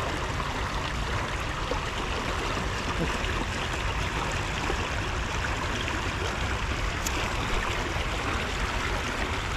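Water gushing out of a drainage pipe outlet into a canal, a steady rush of flowing water.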